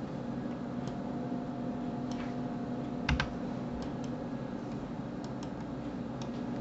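Scattered clicks of a computer mouse and keyboard, about eight in all, the heaviest just past three seconds in, over a steady low hum.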